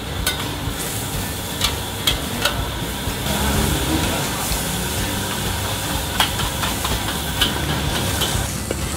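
Noodles frying in a wok over a charcoal fire: a steady sizzle, with the metal spatula scraping and striking the wok in several sharp clangs. The sizzle swells a little past three seconds in.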